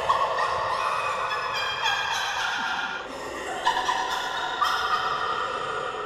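A woman's high-pitched cackling laughter used as a witch's cackle. It comes as a run of breathless laughing bursts, each starting high and sliding in pitch, with a fresh burst about every second.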